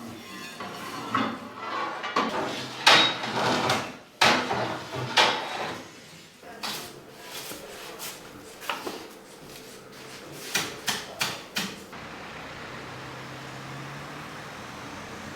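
Bakery work sounds: a string of sharp knocks and clatters of wood and metal, with a louder scraping noise about two to four seconds in. A low steady hum starts near the end.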